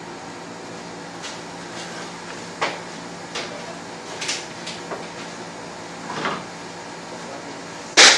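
Kitchen handling noises: scattered light clicks and knocks of items being picked up and set down, with one sharp knock near the end, over a steady hum.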